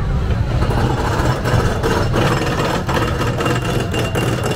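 Steel roller coaster car leaving the station and climbing: a dense, rapid mechanical clatter of the car on the track, over a steady low rumble.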